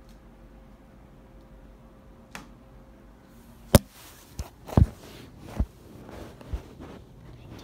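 Handling noise from the recording phone: faint room hum, then a sharp click near the middle followed by several softer knocks and rustles as the phone is moved and covered.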